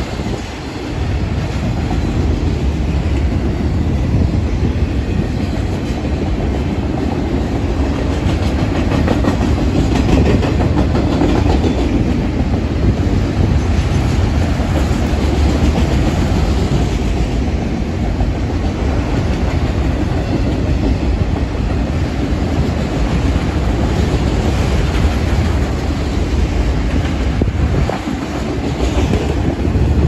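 Autorack freight cars of a vehicle train rolling past close by: a steady loud rumble with steel wheels clattering over the rail joints.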